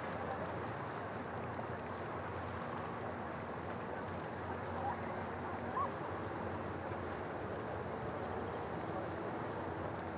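Calm sea washing against a rocky shore, a steady wash of water, with the faint hum of a distant motorboat engine under it, clearest in the second half. Two short chirps stand out about halfway through.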